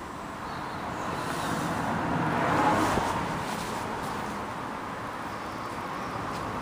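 A car going past: a rush of tyre and engine noise that swells to its loudest near the middle, then fades.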